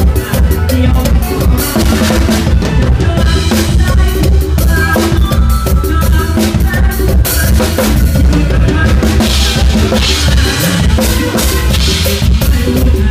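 Drum kit played close up in a fast, busy pattern, with bass drum and snare hits driving a live mor lam sing band that plays underneath.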